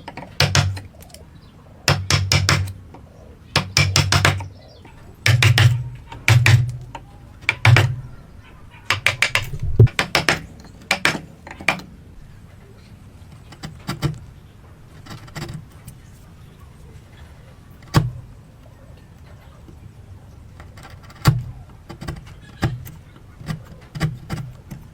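Woodworking hand-tool sounds on wood: short runs of rapid tapping in the first few seconds, then scattered single knocks.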